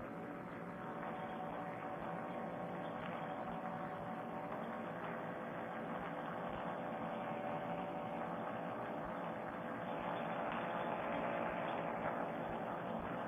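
Paramotor trike engine and propeller running steadily in flight, a constant drone heard dulled through a Bluetooth headset microphone, growing a little louder near the end.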